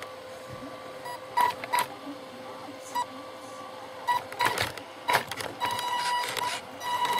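Radio-controlled model truck moving close over the microphone: a faint steady motor whine, sharp clicks and short electronic beeps from its sound module. The beeps come faster and last longer from about four seconds in.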